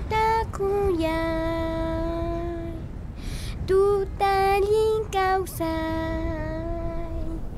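A child singing alone, unaccompanied, in short phrases with two long held notes.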